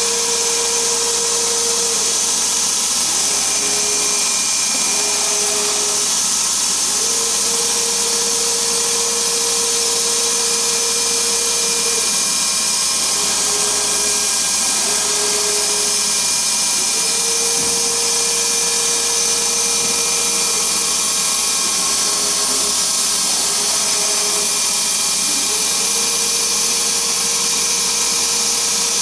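Dongshin Drillmaster drilling machine running steadily. Its motor tone drops a little in pitch for a few seconds at a time, several times, as if taking load, then returns.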